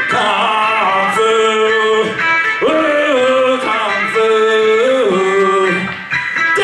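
Music: a voice singing long held notes that slide from one pitch to the next, over plucked string accompaniment.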